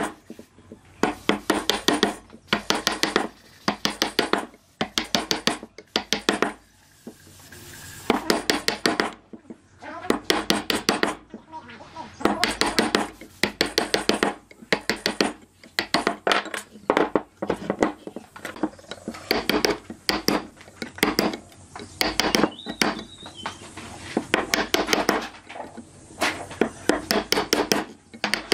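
Woodworking hand-tool work: bursts of quick, sharp knocks and clinks, several strikes in each burst, repeating about every second with short pauses between.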